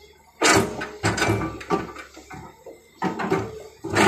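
L&T-Komatsu excavator's steel bucket digging into a heap of soil and rubble. A sudden loud scrape comes about half a second in, followed by rough crunching and grinding of earth and stones for a couple of seconds. After a short lull, more scraping starts about three seconds in.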